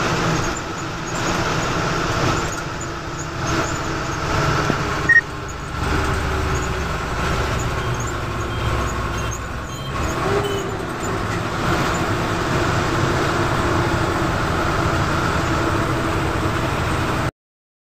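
A bus's engine and tyre noise heard from inside the cab while driving, a steady rumble with a short sharp click about five seconds in. The sound cuts out completely just before the end.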